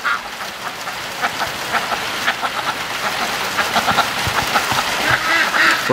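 Heavy rain pouring down: a steady hiss full of sharp drips and splashes. A few faint duck calls come in near the end.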